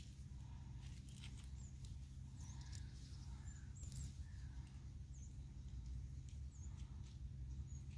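Faint clicks and taps of hand tools being handled, over a low steady rumble. A small bird's short, high chirps repeat every second or so in the background.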